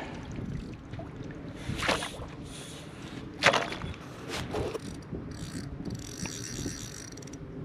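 Spinning reel and rod worked while fighting a hooked carp: scattered clicks and knocks of handling, then a short run of rapid high-pitched ticking near the end as the reel's drag gives line to the pulling fish.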